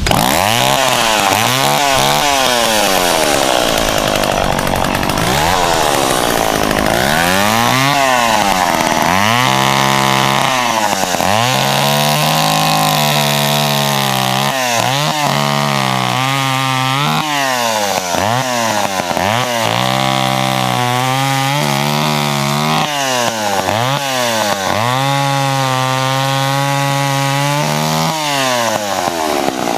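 Small two-stroke John Deere chainsaw cutting branches, revving up and down over and over. Its pitch drops and holds lower through each cut and climbs again between cuts.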